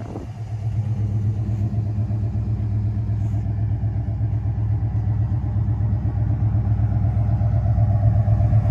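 1991 Jeep Grand Wagoneer's AMC 360 V8 idling with a steady low rumble, growing a little louder near the end.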